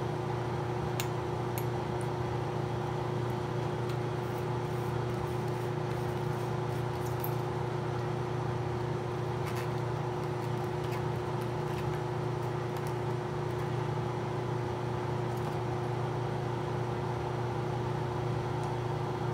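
Steady hum of a laminar flow hood's blower fan running, with a few faint clicks as plastic centrifuge tubes and their screw caps are handled.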